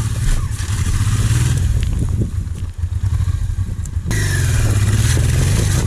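Dual-sport motorcycle engine running at low revs as the bike crawls up wet rock, growing louder about four seconds in as it comes close by.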